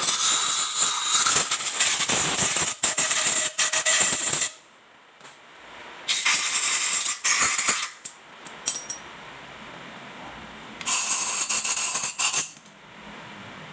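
Three bursts of hissing spray at a motorbike's opened air intake: a long first burst with ratchet-wrench clicks mixed in, then two shorter bursts of a second or two each.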